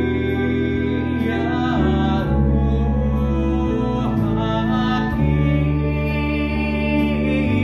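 A young male voice singing a solo over a musical accompaniment of long held chords and bass notes. The voice slides between notes.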